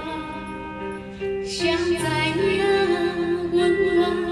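A woman sings a Taiwanese Hokkien ballad into a microphone over a karaoke backing track, amplified through the hall's speakers. The first second or so is backing music alone, then her voice comes in with a wavering, vibrato-laden line.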